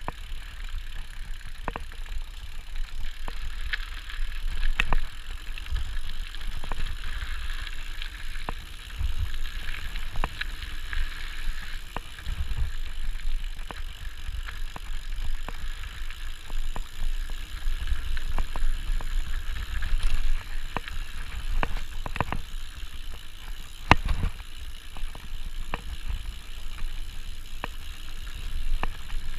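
Mountain bike rolling fast down a gravel trail: a steady crunch of tyres on loose gravel under a low rumble of wind buffeting the microphone. Frequent sharp knocks and rattles come from the bike jolting over bumps, the loudest about two-thirds of the way through.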